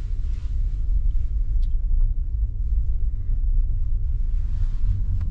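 Steady low rumble of a four-wheel-drive vehicle's engine and tyres, heard from inside the cabin as it rolls slowly through snow.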